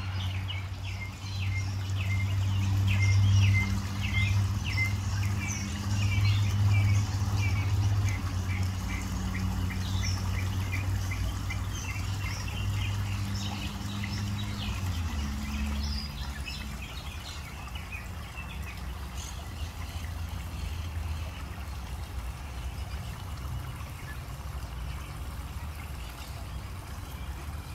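Birds chirping in quick runs of short high calls, busiest in the first half, over a steady low hum that drops slightly in pitch about halfway through.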